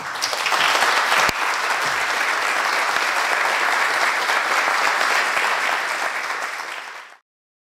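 Audience applauding, steady dense clapping that cuts off suddenly about seven seconds in.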